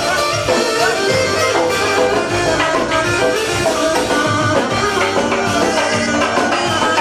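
Albanian folk dance music played by a live wedding band of clarinet, keyboard and drums, with a steady beat.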